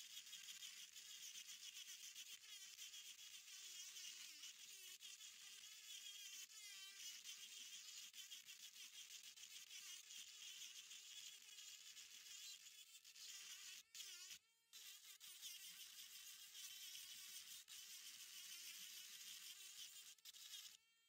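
Handheld Dremel rotary tool with a thin bit grinding into fossil shell rock: a faint, steady high-pitched whine that wavers slightly as the bit bites. It cuts out briefly about two-thirds of the way through and stops just before the end.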